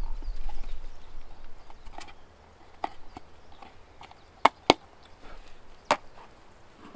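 Firewood being chopped with a hand axe: five sharp, separate knocks, the two loudest close together about halfway through.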